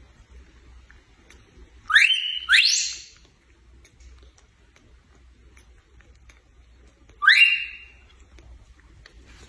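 Baby macaque squealing while feeding from a milk bottle: three short, loud rising squeaks, two in quick succession about two seconds in and one about seven seconds in. Faint clicks come in between.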